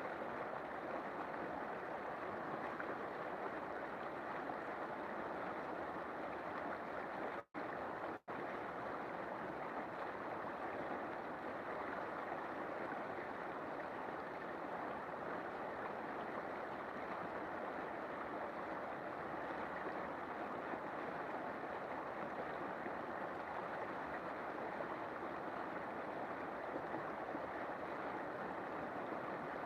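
River water flowing in a steady, continuous rush. The sound cuts out for an instant twice, about seven and a half and eight seconds in.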